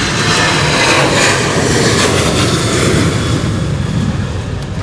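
Airbus A330-900neo's Rolls-Royce Trent 7000 turbofans running at taxi power as the airliner taxis past. The noise is loudest between about one and three seconds in, then slowly fades.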